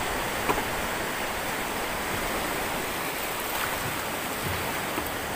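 Surf breaking and washing around a small boat in shallow water, a steady rushing noise, with a short knock on the boat about half a second in.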